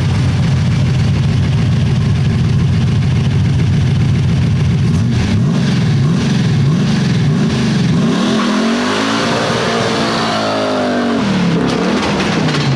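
Rat-rod Chevy LUV pickup's engine revving hard during a burnout, loud and continuous, the revs swinging up and down several times in the second half.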